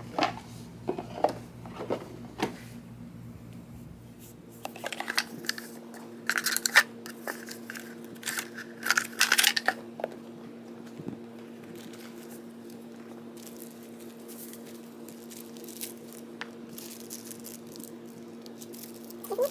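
Eyewear packaging being handled: a few light taps and clicks, then a burst of crinkling and rustling of paper and plastic wrap about five to ten seconds in, followed by quieter handling noises.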